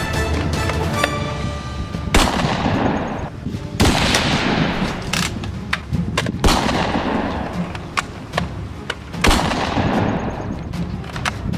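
Gunshot sound effects: about five loud shots, each with a long echoing tail, with quicker smaller cracks between them.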